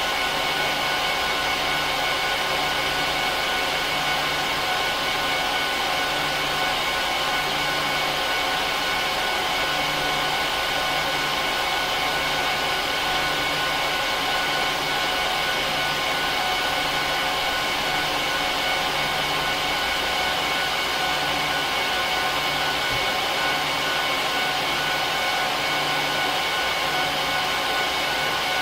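Cooling fans of an HP ProLiant DL380p Gen8 rack server running with a steady loud whoosh and several steady whining tones. A low hum under it swells and fades about every second and a half.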